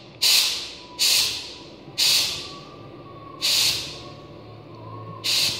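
Compressed air blasting through a gravity-feed paint spray gun in five short trigger pulls, each a sharp hiss that tails off, about a second apart with a longer gap in the middle. The air pressure is set too high for spraying, above the two atmospheres wanted.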